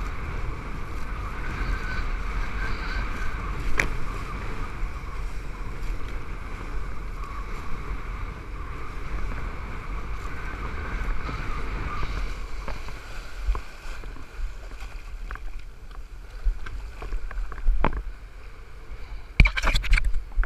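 Wind buffeting the action camera's microphone over water rushing and hissing under a kiteboard as it skims across the sea. Near the end a few sharp knocks as a hand touches the camera.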